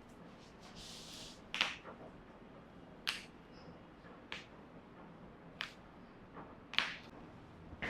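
Five sharp clicks, about one to one and a half seconds apart, made during a chiropractic adjustment; the first and last are the loudest. A short soft hiss comes about a second in.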